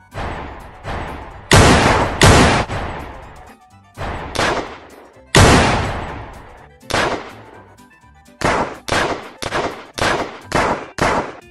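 Pistol gunshot sound effects in a shootout: a rapid string of single shots, each followed by a long echoing tail. The shots are spaced out at first and come faster, about two a second, in the second half.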